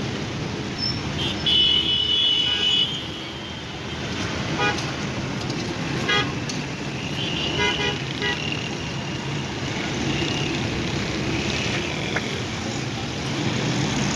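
Busy street traffic with a vehicle horn sounding for about a second and a half near the start, then three short toots spaced about a second and a half apart.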